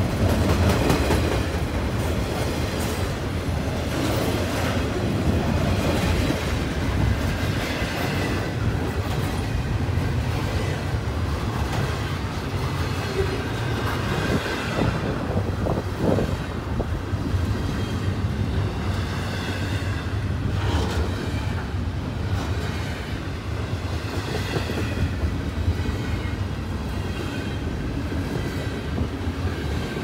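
CN double-stack intermodal freight cars rolling past at track speed: a steady, heavy rumble with occasional sharper knocks from the wheels.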